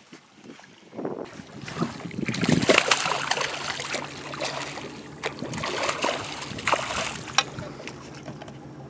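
A small hooked fish thrashing and splashing at the water's surface beside the boat's hull, loudest about two to three seconds in. A steady low hum starts about three seconds in and runs on underneath.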